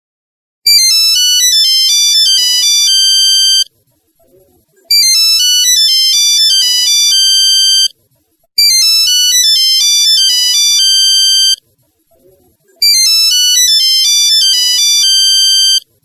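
Old Nokia mobile phone ringtone: a one-voice electronic melody of quick stepped notes ending on a longer held note. It plays four times over, each round about three seconds long with a brief pause between.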